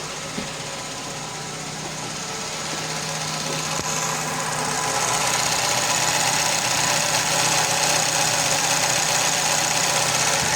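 Chevrolet Cobalt's four-cylinder engine running steadily through its freshly repaired catalytic converter and exhaust. The sound grows louder over the first half and then holds steady.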